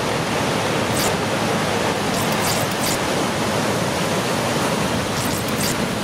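Steady roar of a giant breaking wave and its churning whitewater, with a few short high hissing crackles.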